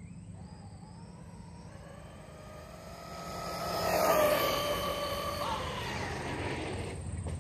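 Arrma Kraton 4S BLX v2 RC truck's brushless motor whining at full throttle on a speed run. The whine climbs in pitch as the truck accelerates, is loudest about four seconds in, then fades and drops in pitch.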